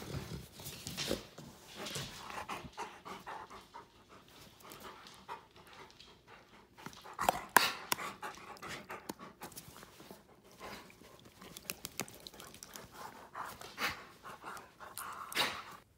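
A dog panting close to the microphone, with irregular rustling and short clicks as a hand pets it. A sharper, louder burst comes about seven and a half seconds in.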